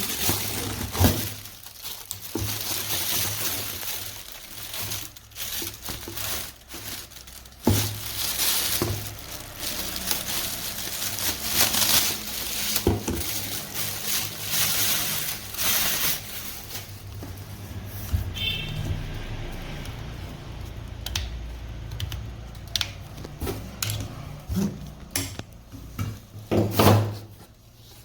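Plastic packaging rustling and crinkling, with irregular clicks and knocks of plastic parts being handled, as a canister vacuum cleaner is unpacked.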